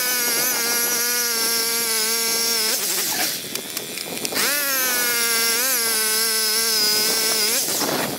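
Gas-powered ice auger drilling through lake ice, its small engine running at high, steady revs. It eases off about three seconds in, revs back up about a second and a half later, and drops again near the end.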